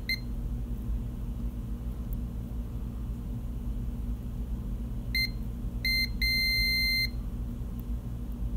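Multimeter continuity tester beeping: two short chirps a little after five seconds in, then a steady beep of almost a second as the probes make contact through the soldered enameled wire. The steady tone signals a good electrical connection.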